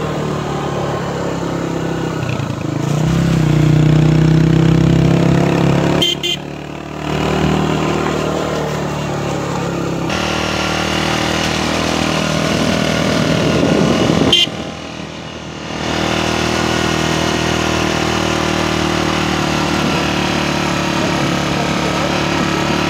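Motorcycle engine running while the bike rides along, getting louder a few seconds in. The engine sound dips briefly twice, about six and fourteen seconds in, each time after a click.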